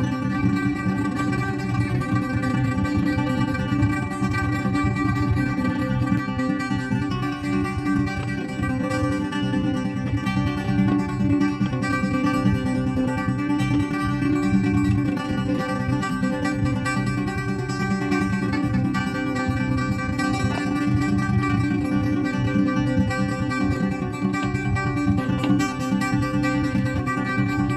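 Background music: an acoustic guitar playing plucked notes and strums at a steady level.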